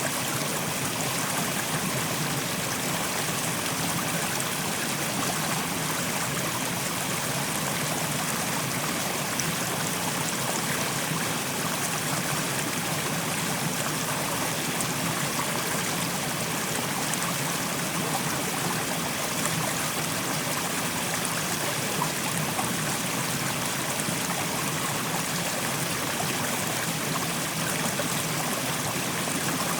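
Mountain stream, fast-flowing water rushing over rocks in a steady, even rush with fine splashing and gurgling.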